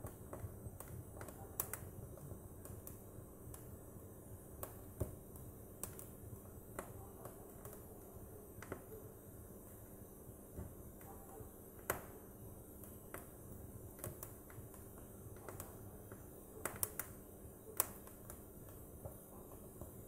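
Wood fire in a fireplace crackling: irregular sharp pops and snaps from the burning split logs over a low steady background. There is one louder snap about midway and a quick run of louder pops near the end.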